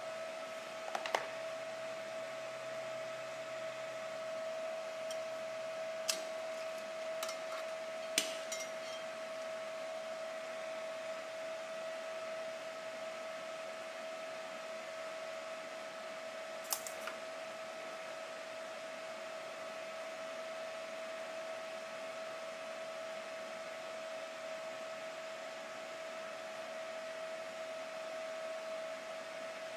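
Steady mechanical hum of a running machine, with a few sharp metallic clicks: a cluster about a second in, more around six to eight seconds in and one near seventeen seconds.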